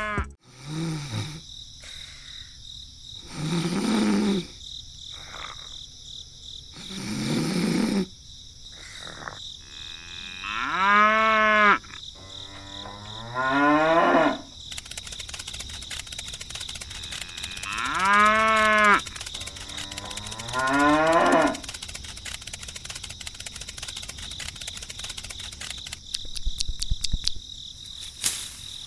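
Cattle mooing, about seven separate drawn-out calls spread a few seconds apart, over a steady background of insects chirring that grows thicker about halfway through.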